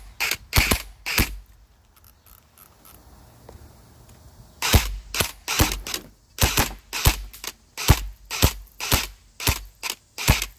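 Airsoft gun firing single shots: four quick shots, a pause of about three seconds, then a fast string of about fifteen more at roughly two a second.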